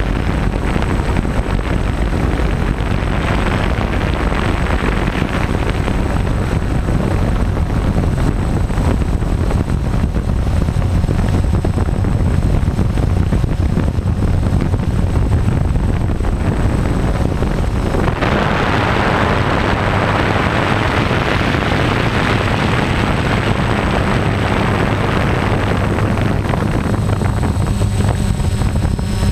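DJI F550 hexacopter's motors and propellers droning steadily in flight, heard through its onboard camera's microphone with wind rushing over it. About two-thirds of the way through, a louder, brighter rushing hiss comes in.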